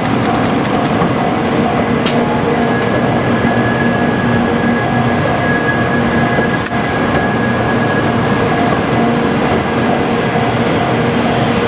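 923-series Doctor Yellow Shinkansen set running over a level crossing, a loud steady rumble of the train. A level-crossing alarm repeats about three times a second at the start, drops out, and comes back near the end.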